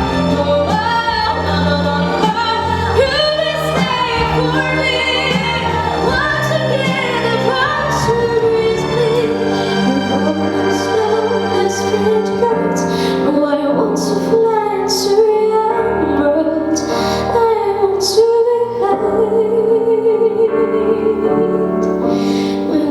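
Teenage girl singing over a musical backing track, with long held notes wavering in vibrato in the second half.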